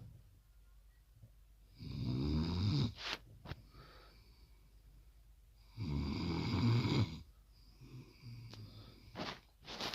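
Snoring: loud snores about every four seconds, with fainter breathing between them.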